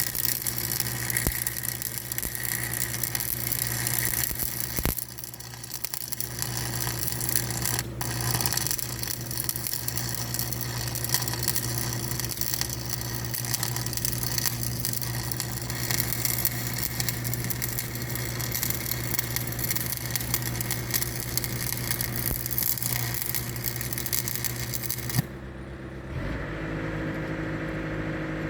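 A heavy machine's engine running steadily under a loud rattling mechanical din. About 25 seconds in, the rattling noise cuts off abruptly, leaving a quieter, even engine hum.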